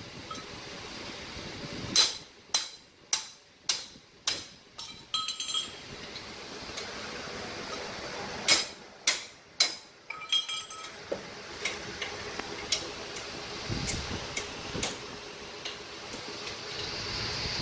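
Sharp metal-on-metal strikes of a tool on metal parts, six in quick succession and then four more a few seconds later, several ringing briefly, followed by lighter scattered taps and clicks.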